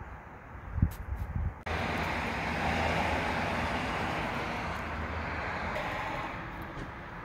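Rushing noise of road traffic that cuts in abruptly about two seconds in and slowly fades, after a few low thumps of wind on the microphone.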